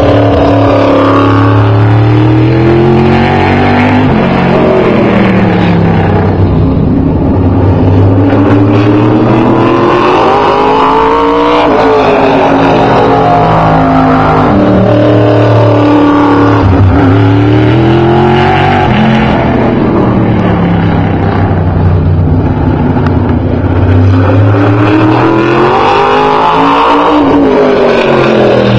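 A single race car's engine lapping a short oval. The revs climb on the straights and drop off into the turns, over and over, so the engine note keeps sweeping up and falling back.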